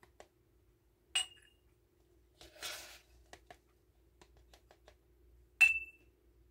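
Metal measuring cup and spoon clinking against glass canning jars twice, each clink ringing briefly, with a short scraping rustle between them as oat flour is scooped and poured.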